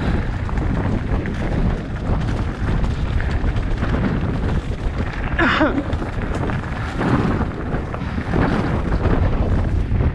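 Wind buffeting the camera microphone on a mountain bike, with a steady low rumble throughout. About halfway through comes a brief wavering, pitched squeal.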